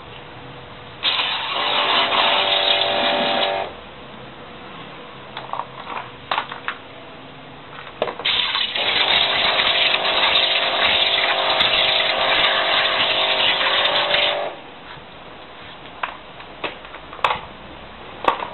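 Electric high-pressure washer running and spraying water onto a washing machine drum in two bursts, the first about two and a half seconds, the second about six seconds, a motor whine under the hiss of the spray. A few knocks and clicks in between.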